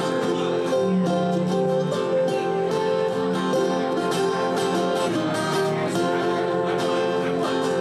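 Live acoustic guitar music, chords strummed steadily in an instrumental break with no singing.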